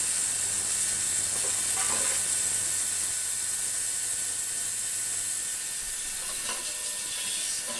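Allendale Ultrasonics benchtop ultrasonic cleaner running, a bit noisy: a loud, steady high-pitched hiss from the tank, with a low hum underneath that stops about five seconds in.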